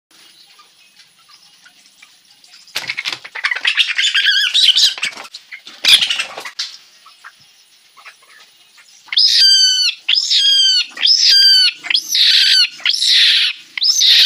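A domestic hen being caught: a flurry of wing flapping and scuffling, then loud, repeated squawks, six or seven in a row about a second apart from about nine seconds in, the alarm calls of a hen in the hand.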